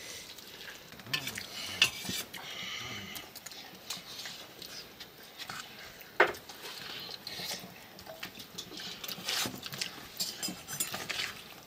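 Steel spoons clinking and scraping on stainless steel plates while eating noodles: scattered light clicks, with one sharper clink about six seconds in.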